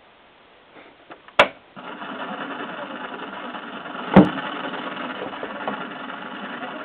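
Zenith Circle of Sound clock radio's speaker: a sharp click a little over a second in, then a steady hiss of AM-band static, broken by a loud pop about four seconds in.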